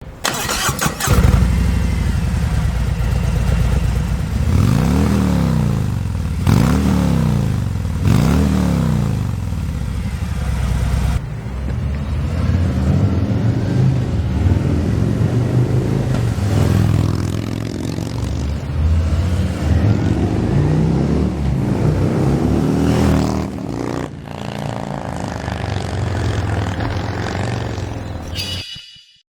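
Harley-Davidson Milwaukee-Eight V-twin of a 2017 Touring motorcycle starting up about a second in and idling through slip-on mufflers. It is blipped three times in quick succession, and there are more rev blips later.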